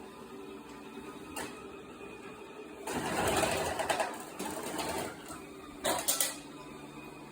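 LG Roboking robot vacuum cleaner running with a steady motor hum. About three seconds in, a much louder rough noise lasts some two seconds, followed by a few sharp knocks around six seconds.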